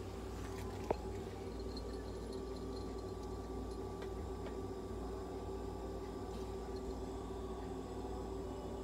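A steady low hum with several faint steady tones above it, and a single sharp click about a second in.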